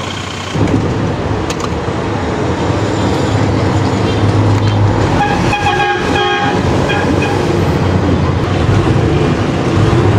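Mitsubishi 6M70 inline-six diesel engine running loudly, now that its injection pump has been retimed to its timing mark. It gets louder about half a second in, and a brief high tone sounds over it around the middle.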